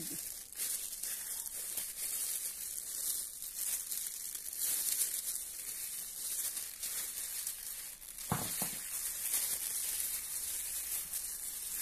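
Thin plastic food gloves crinkling and a moist grated-cassava mixture squishing as hands knead it in a stainless steel bowl: a steady, irregular crackling rustle.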